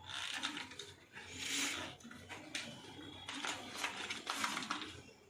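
Product packaging being handled and opened by hand, rustling and scraping in several bursts.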